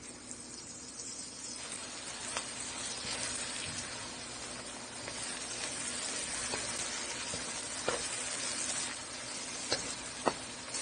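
Diced mixed vegetables sizzling as they fry in curry and oil in a pot on medium heat, stirred with a wooden spatula. The sizzle grows louder about a second and a half in, and a few sharp clicks of the spatula against the pot come through it.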